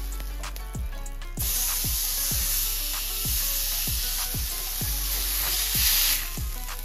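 Ground-beef patty sizzling in a hot cast-iron skillet: the frying hiss jumps up about a second and a half in, as the patty goes into the pan, and holds steady. Background music with a steady beat plays throughout.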